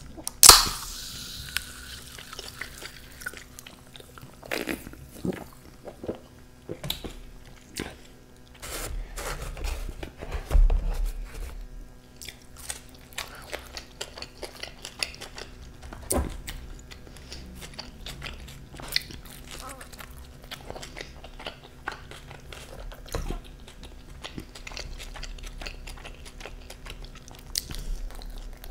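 A can of Coke cracked open by its ring-pull with a sharp pop and a short fizzing hiss just after the start, then close-miked biting and chewing of pizza, with scattered small mouth clicks and smacks.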